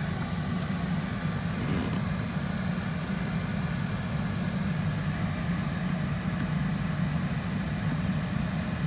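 Steady low mechanical hum heard from inside the sleeper cab of a 2015 Kenworth T680 semi truck while its systems are running, even in level throughout.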